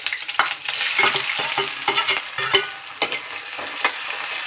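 Chopped onions sizzling as they go into hot mustard oil in a steel kadai, with a steel spoon scraping and clicking against the pan as they are stirred.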